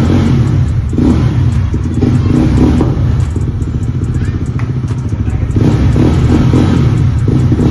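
Yezdi Roadster's 334 cc single-cylinder engine running with the dB killers removed from its silencers, a loud, deep, open exhaust note. The note swells about a second in and again near six seconds.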